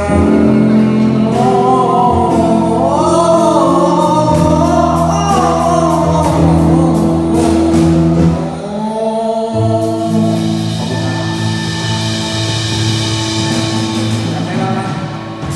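Live pop-rock band with a male singer: a sung line over sustained bass and chords, giving way about halfway through to held instrumental chords with cymbal wash.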